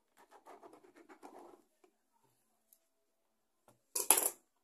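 Mini electric sewing machine stitching briefly through viscose-lycra knit, a faint fast rattle of the needle for a second or so. Near the end comes a short, loud scratchy rasp as the sewn fabric and thread are pulled out from under the presser foot.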